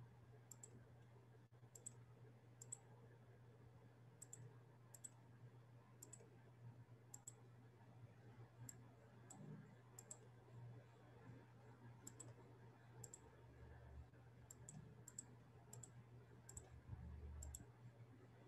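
Near silence apart from faint computer mouse clicks, mostly in close pairs, every second or so at an uneven pace, over a steady low hum.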